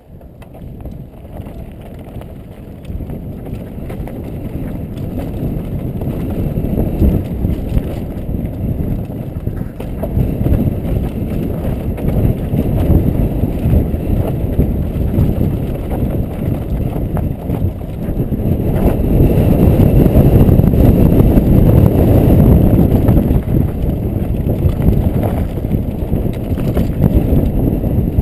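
Wind rushing over a helmet-camera microphone, mixed with a mountain bike's tyres rolling over dry dirt and rock and the bike rattling over bumps on a downhill run. The rush builds as speed picks up and is loudest about twenty seconds in.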